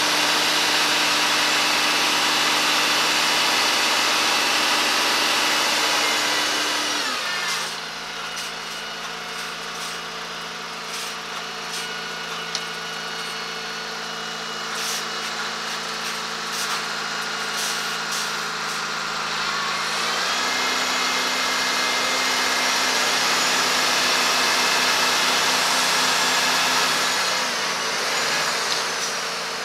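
Diesel engines of a tractor and a lorry running under load as the tractor tows the lorry up a snowy slope. The engine note drops about seven seconds in, picks up again around twenty seconds, and falls once more near the end.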